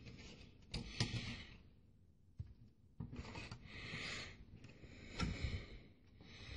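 A hand tugging at a sound card seated in a computer's expansion slot: soft rubbing and scraping of fingers and board against the metal case, with a few light clicks. The card is not coming out of the slot.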